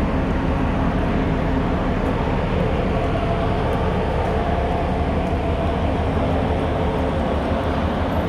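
Car ferry's engines and deck machinery running with a steady, loud rumble and a constant hum, heard on the vehicle deck.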